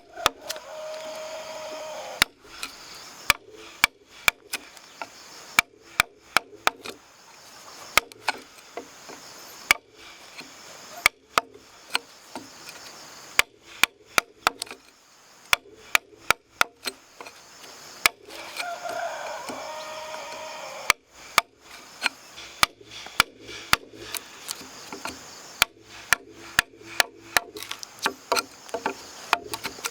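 A tool striking wood over and over in sharp, irregular blows, a few a second, as in chopping or hammering timber.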